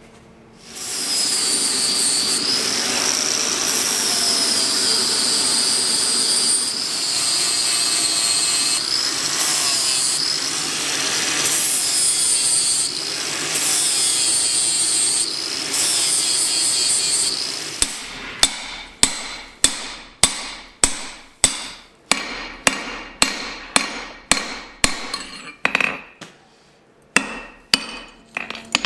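A power grinder runs steadily for about seventeen seconds, with a high whine that wavers as the load changes. Then it stops, and a hammer strikes metal on an anvil, about two ringing blows a second.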